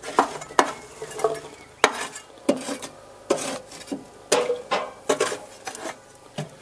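Folding steel army spade scraping through and clinking against hot charcoal briquettes in a grill's steel firebox, shoving the coals into heaps to either side for an indirect-heat zone: a dozen or so irregular scrapes and clinks.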